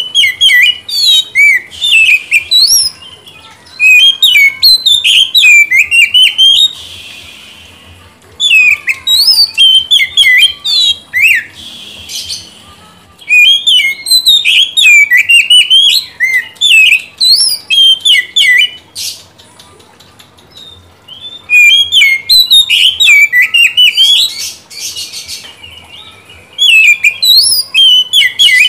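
Oriental magpie-robin (kacer) singing loudly: rapid runs of varied whistled notes in phrases of a few seconds, separated by pauses of a second or two, with a few harsh rasping notes mixed in.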